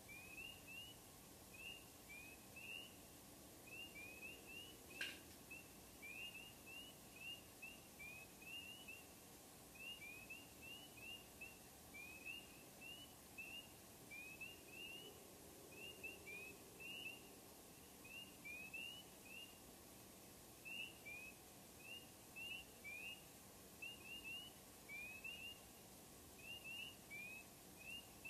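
Faint chorus of spring peepers: short rising peeps repeat continuously, often overlapping in pairs and small clusters. A single sharp click sounds about five seconds in.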